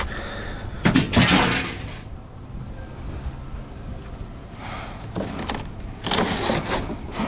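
Two bouts of clattering knocks, about a second in and again near the end, over a low steady rumble.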